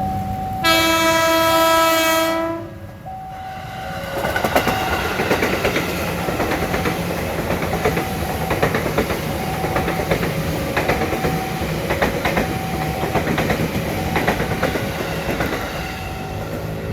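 An electric commuter train sounds its horn for about two seconds, then runs past with a steady rumble and its wheels clicking over the rail joints. Under it all, a level-crossing warning bell rings in two alternating tones.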